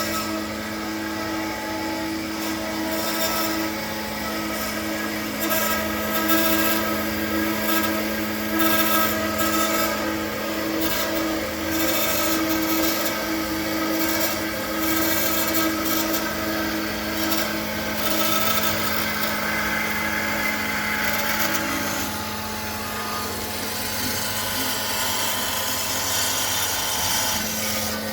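Metallkraft BMBS 290x290 CNC-F automatic metal-cutting band saw, with a 3 kW frequency-controlled drive, running: a steady hum under a rough, wavering hiss, the sound shifting a little just over twenty seconds in.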